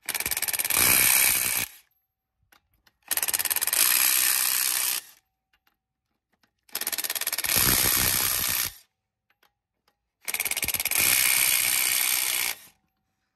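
Impact wrench hammering off wheel lug nuts in four bursts of about two seconds each, with short pauses between them.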